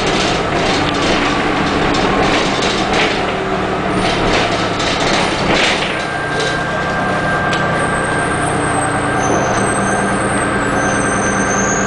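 Cabin sound of a 1985 Flyer D901A city bus under way: its Detroit Diesel 6V71N two-stroke V6 diesel running steadily, with body rattles. A thin steady whine joins about halfway through.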